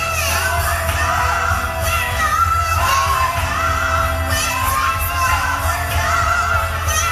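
Gospel song playing loudly over a hall's sound system: a woman's voice singing a wavering, drawn-out melody over a steady bass.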